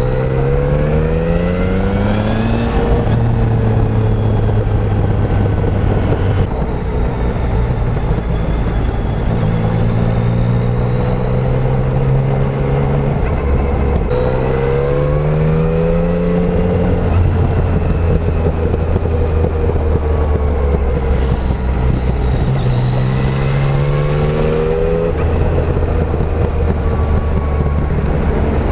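Yamaha Tracer 900's three-cylinder engine with its stock exhaust, ridden on the road: the revs climb three times under acceleration, then settle into steady cruising between pulls.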